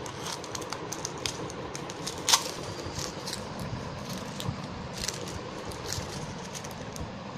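Small hands handling a Kinder Joy plastic capsule and its wrapped toy packet: scattered small plastic clicks and wrapper crinkles, with one sharper click about two seconds in, over a steady background noise.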